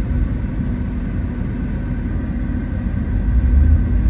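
Steady low rumble of cabin noise inside a Tesla electric car rolling slowly: tyre and road noise, with no engine sound.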